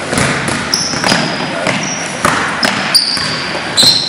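Basketball game on a gym court: sneakers squeak sharply on the hardwood several times, a ball bounces, and players and spectators shout, echoing in the hall.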